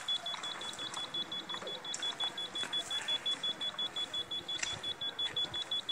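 Handheld 3D Locator groundwater detector beeping while scanning: a steady, rapid string of high-pitched beeps, about five a second.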